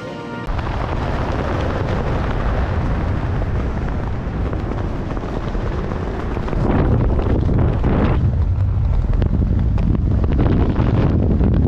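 Wind buffeting the microphone of a parachutist's helmet camera during a canopy descent: a loud, steady rushing rumble that swells twice, about seven and eleven seconds in.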